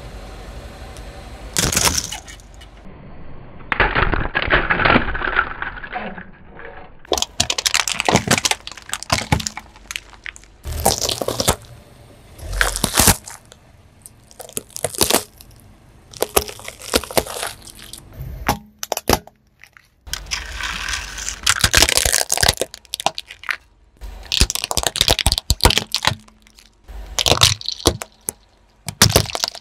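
A series of cracks, crunches and pops as a car tyre rolls onto and crushes small objects one after another: liquid-filled plastic syringes, filled balloons and plastic Rubik's cubes breaking apart.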